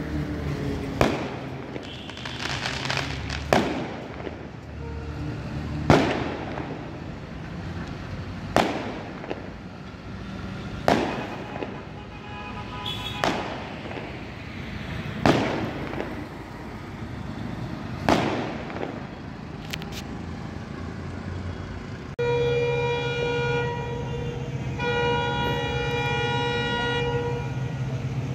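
Festival firecrackers going off, single sharp bangs with an echoing tail, about one every two and a half seconds, eight in all. Near the end a train horn comes in, loud and several-toned, in a few long blasts.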